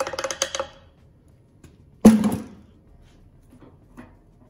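Gasoline gurgling as it is poured from a plastic bucket into a motorcycle's fuel tank, stopping within a second. About two seconds in comes a single loud, hollow thunk.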